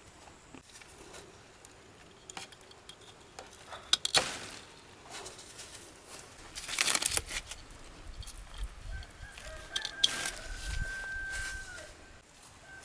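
Chickens clucking, with scattered clicks and two loud rustling bursts, and a steady high call held for a couple of seconds near the end.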